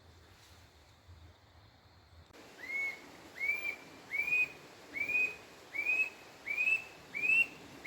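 Squirrel cuckoo (alma-de-gato) calling: a run of seven loud whistled notes, each rising and falling, evenly spaced a little under a second apart, starting about two seconds in.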